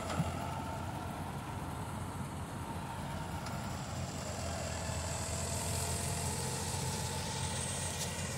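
Tractor-mounted combine harvester, powered by a John Deere 5310 tractor's diesel engine, running steadily while cutting wheat. It makes an even, low engine drone with no let-up.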